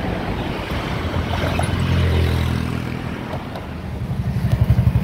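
A motor engine running steadily, its low hum strongest about two seconds in, then turning into a pulsing low rumble near the end.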